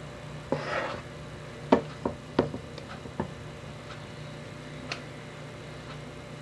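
Plastic measuring cup scraping inside a stainless steel mixing bowl and knocking against it while scooping cake batter: a brief scrape, then a quick run of sharp knocks and one more a couple of seconds later.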